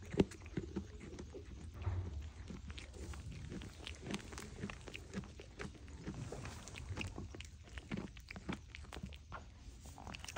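A sheep chewing hand-fed treats close to the microphone: a run of irregular crisp crunches and clicks.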